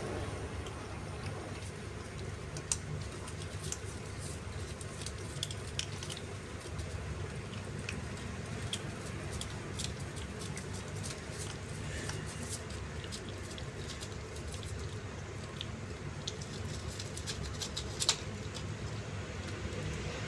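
Kittens eating dry kibble from a bowl: many small, irregular crunching and clicking sounds of chewing and kibble knocking in the dish, a couple of sharper clicks about 3 s and 18 s in, over a steady low background hum.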